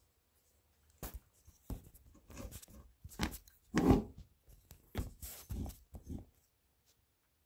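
Handling noise of a phone camera being moved close to the floor: irregular light knocks and rustling, loudest just before four seconds in, dying away after about six seconds.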